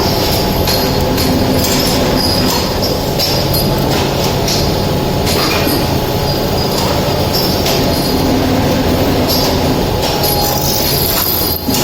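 Automatic PLC-controlled fan-shaft drilling machine running, with drills cutting into both ends of the shaft. A steady motor hum is overlaid by repeated short, high squeals and clicks of metal on metal.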